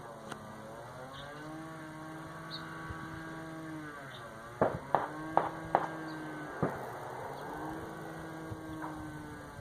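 A steady mechanical hum whose pitch dips and comes back three times, with a few sharp clicks or knocks about halfway through.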